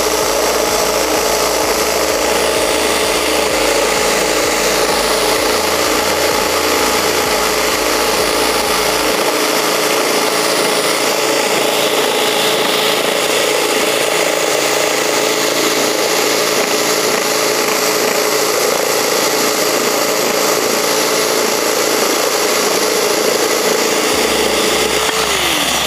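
An electric drill driving a plastic reciprocating saw attachment whose blade is cutting through a thick wooden plank: a steady motor whine over the rasp of the blade. Near the end the motor's pitch drops as it spins down and stops.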